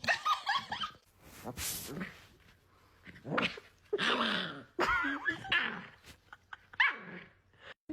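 A dog making a string of short vocal sounds, most with a pitch that bends up and down, and one short noisy burst without pitch about a second and a half in.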